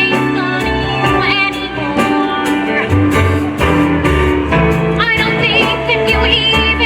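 A woman singing a show-tune ballad over instrumental accompaniment, holding long notes with a wide vibrato.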